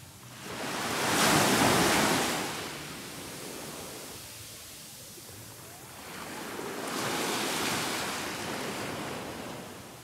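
Small waves breaking and washing up a sandy beach: a louder surge about a second in, a softer one near seven seconds.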